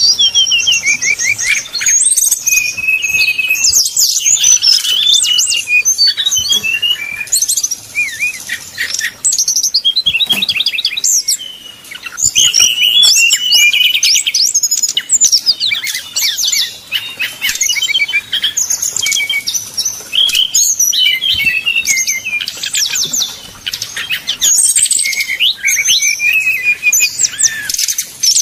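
Brown-chested jungle flycatcher singing a fast, varied song of high chirps, whistles and rapid trills, run together almost without a break, with short lulls about two fifths and four fifths of the way through.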